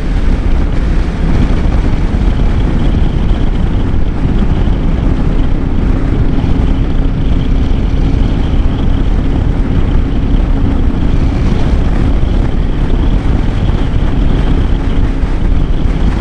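Motorcycle ride on a Royal Enfield Meteor 350: wind buffeting the microphone over the single-cylinder engine running at a steady cruise, with a steady engine note coming through from about five seconds in.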